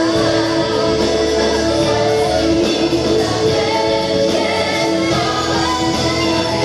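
Live gospel choir singing held chords behind a female lead vocalist, backed by a band with guitar.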